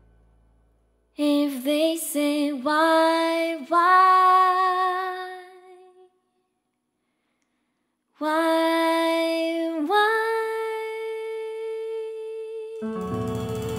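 Unaccompanied female voice singing wordless phrases with pitch slides, in two breaths separated by about two seconds of silence. The second phrase ends on a long held note as the piano, bass and drums come back in near the end.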